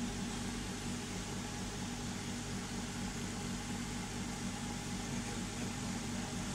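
Tabletop vacuum chamber sealer's vacuum pump running with a steady hum and hiss while it pulls the air out of the closed chamber, shrinking the bag tight around its contents.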